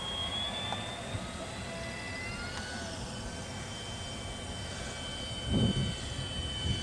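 Battery-powered electric motor and propeller of a radio-controlled Kellett gyrocopter model running at flying power: a steady high whine that shifts up in pitch about two seconds in as it climbs away. A low rumbling buffet comes in near the end.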